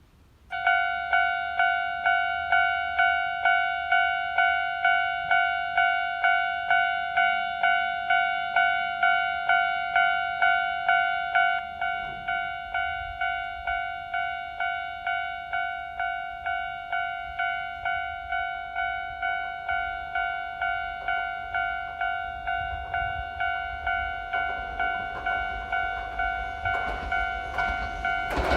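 Railway level-crossing warning bell ringing, a steady repeating clang of about two strikes a second that starts about half a second in. Near the end the rumble of an approaching train rises underneath it.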